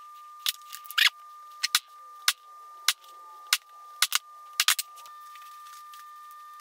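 Sharp taps of a small ball-peen hammer on gasket paper laid over a metal cover plate, cutting a new gasket to shape, about one tap every half second, with a few scissor snips in the first second; the taps stop about five seconds in. A steady high-pitched tone runs underneath throughout.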